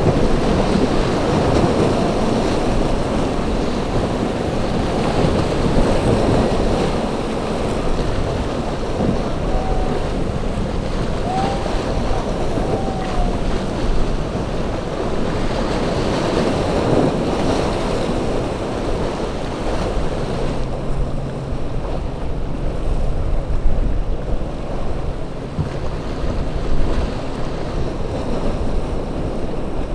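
Wind buffeting the microphone over the steady rush of rough sea and waves, with boat engines running in the background.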